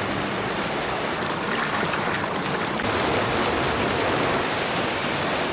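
Steady rushing of a river's flowing water, an even hiss with no rhythm or pitch.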